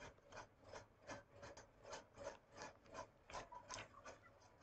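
Near silence with faint, evenly spaced scratching strokes, about three a second.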